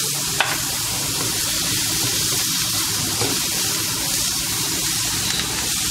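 Chopped leeks and small chicken pieces frying in oil in a pan: a steady sizzle, with one light click about half a second in.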